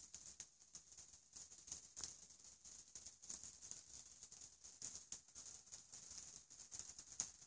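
Faint, dense patter of fine, irregular ticks: ice pellets falling and hitting at the start of an ice storm, with one sharper tick near the end.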